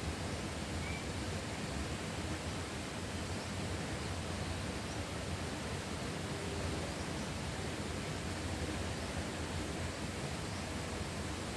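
Steady, even rushing noise of a rural outdoor ambience, with a faint short chirp about a second in.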